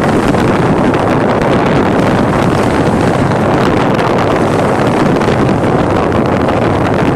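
Steady, loud rushing noise of a boat under way, with wind buffeting the microphone.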